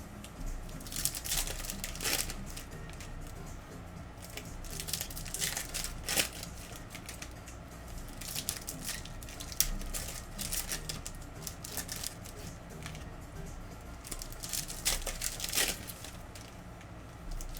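Foil trading-card pack wrappers from Donruss Optic football hobby packs crinkling and tearing open in irregular crackles, with handling of the packs between them.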